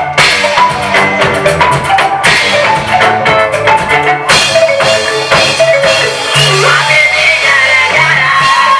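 Loud, rhythmic gospel band music with a drum kit and a steady bass line under melodic instrument lines.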